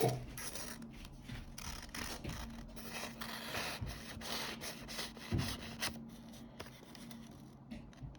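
Freshly sharpened pocket knife blade slicing through paper: an uneven rustling hiss of paper being cut, dying down after about six seconds.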